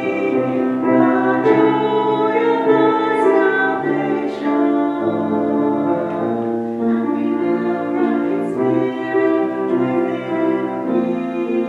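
Two singers performing a duet with piano accompaniment, holding long sung notes.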